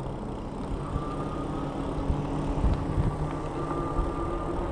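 Riding a bicycle along a paved path: wind buffeting the microphone and tyres rolling, with a faint steady whine.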